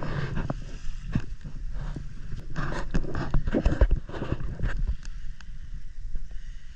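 Footsteps in dry beach sand, about two steps a second and loudest in the middle, over a steady low rumble.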